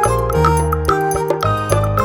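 Background music: an upbeat keyboard tune with a bass line and a regular beat.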